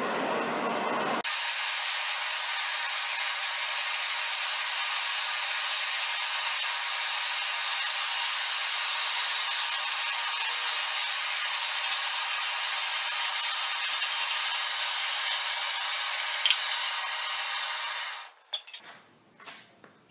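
Hand-held gas torch on a hose from a yellow fuel cylinder, its flame hissing steadily as it heats metal in a steel pan. The hiss cuts off sharply near the end, followed by a few knocks and clatters of the torch and pan being handled.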